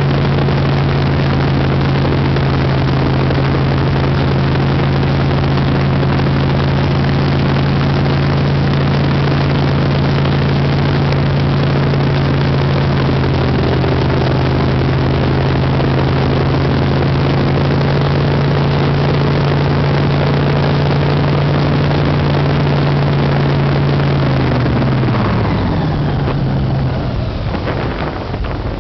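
Airboat's engine and air propeller running loud and steady at cruising speed under a rushing haze of wind and water noise. About 25 seconds in, the pitch falls and the sound drops as the throttle is cut back and the boat slows.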